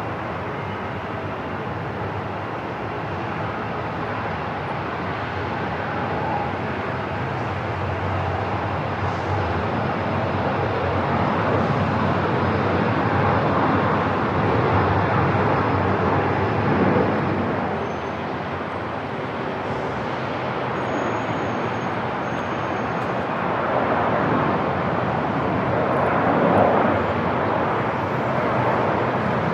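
Airport ambience: a steady, even rushing noise that swells a little twice, in the middle and near the end.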